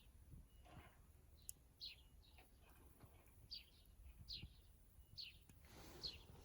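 Faint background with a small bird calling: short, high, down-slurred chirps repeated about once a second, over a few soft low knocks.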